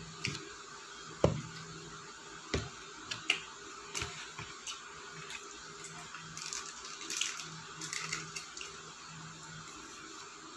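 Close-up eating sounds: a few taps and knocks from a fork working spaghetti in a paper food box, the loudest a low thump about a second in. From about six seconds, a few seconds of soft crinkling as a small plastic sauce cup is opened. A faint steady low hum underneath.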